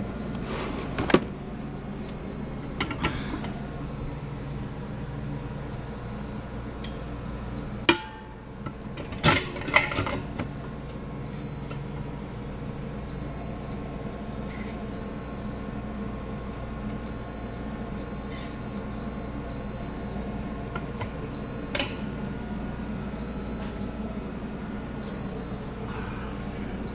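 Vacuum pump running steadily while evacuating a walk-in freezer's refrigeration system, with short electronic beeps now and then and a few sharp knocks, the loudest about 8 and 9 seconds in.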